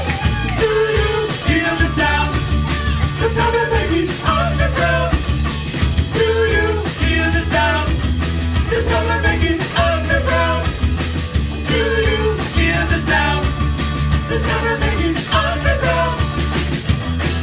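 A live rock band playing: a male lead voice singing over electric guitar, electric bass and drums, with a steady beat.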